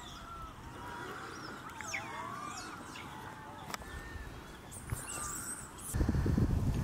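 Wild animal calls: many short chirps and rising and falling whistles over a steady outdoor hiss. Near the end a sudden loud low rumble of wind on the microphone takes over.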